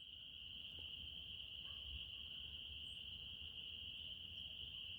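A faint, steady, unbroken high-pitched chorus of night-calling animals, even and continuous with no separate calls standing out. The recordist can't place it between frogs and insects. A few brief, fainter, higher chirps sound over it.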